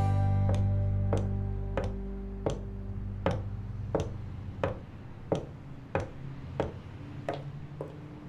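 High-heeled shoes clicking step by step down wooden stairs and on across the floor, about one and a half steps a second, over background music that fades down over the first few seconds.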